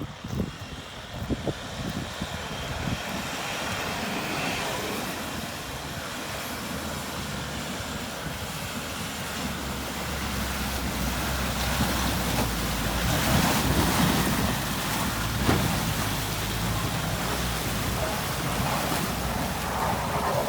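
Off-road vehicle engine running under load during a tow recovery in a creek bed, getting louder about halfway through, with rushing water or wind noise around it and a few knocks in the first couple of seconds.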